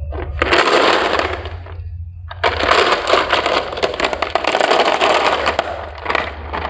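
Many marbles clattering and rattling down a marble run track in two rushes, the first about a second long and the second lasting about four seconds, full of rapid clicks over a steady low hum.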